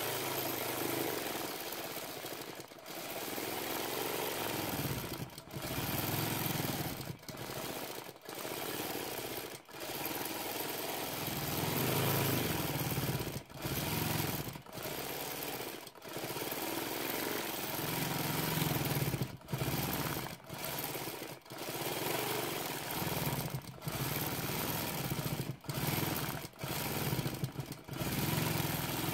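A-1 longarm quilting machine stitching freehand, the needle running fast and evenly, its speed and pitch rising and falling and breaking off briefly many times.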